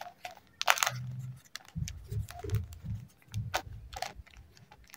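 Ballpoint pen writing on a small slip of paper: a scatter of faint scratches and small clicks as the figure is written, with light handling of the paper.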